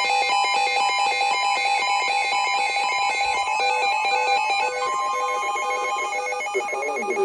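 A fast electronic tune of short beeping tones that jump between pitches in a steady rhythm, like a ringtone or alarm melody.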